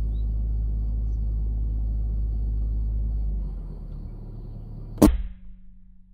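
A single shot from a PCP air rifle, one sharp crack about five seconds in. Before it there is a steady low rumble that fades away a second or so before the shot.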